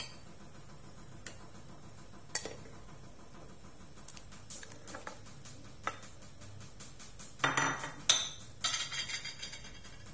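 Metal ladle clinking and scraping against a plate and a steel cooking pot as squid are pushed off the plate into the pot: a few single clinks at first, then a quick run of louder clatter near the end.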